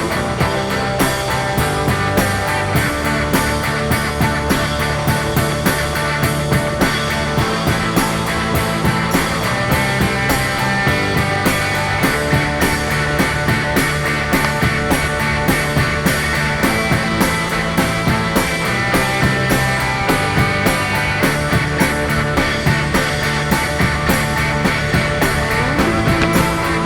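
Rock music with electric guitar and a steady beat of about two beats a second.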